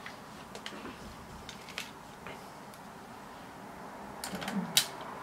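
Light clicks and taps of plastic and metal as a professional camcorder is handled and a shotgun microphone is fitted into its handle mount, with a quick run of clicks near the end ending in one sharper snap.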